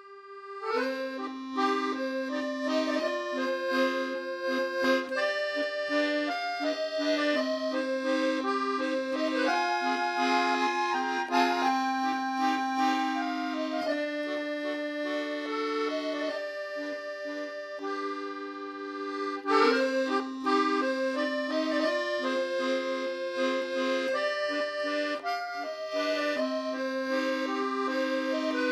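Instrumental background music led by an accordion: a melody of sustained notes over long held bass notes. It thins out briefly about two-thirds of the way in, then picks up again.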